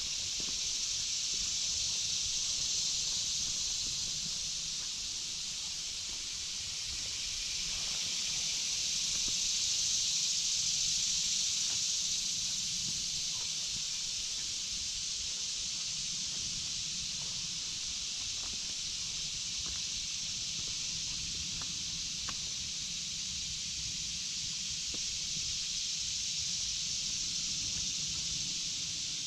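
Cicadas (locusts) buzzing in a steady, high, continuous chorus that slowly swells and eases.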